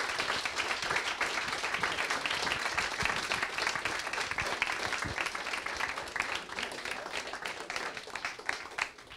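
Audience applauding, many hands clapping at once, tapering off near the end.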